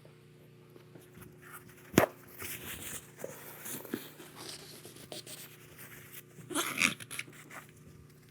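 Scattered workshop handling sounds: a sharp click about two seconds in, then light knocks and rustles, with a brief louder clatter near the end.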